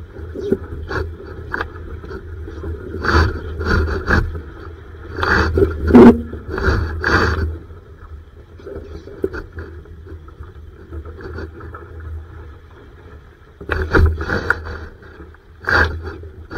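Water splashing and slapping against a Laser sailing dinghy's hull, in irregular bursts that cluster from about three to seven seconds in and come back twice near the end, over a steady low rumble.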